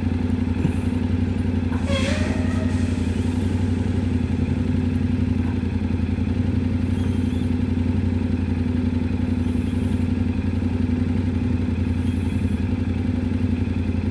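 Yamaha Ténéré 700's 689 cc parallel-twin engine running at a steady, unchanging speed.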